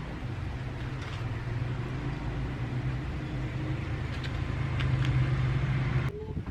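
Steady low motor drone with a haze of noise, growing a little louder, then cut off abruptly near the end.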